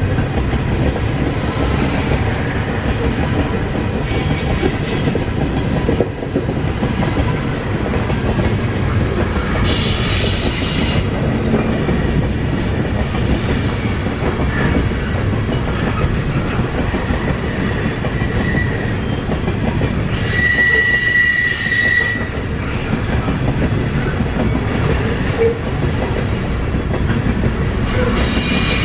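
Union Pacific freight train of covered hopper cars rolling past, a steady rumble of steel wheels on rail. Short bursts of high-pitched wheel squeal come and go several times, the clearest about ten seconds in, around twenty seconds in and near the end.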